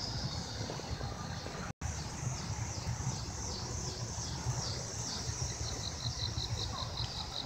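A high-pitched insect song in rhythmic pulses, about three a second, speeding up to about six a second near the end, over a steady low rumble. The sound cuts out for an instant about two seconds in.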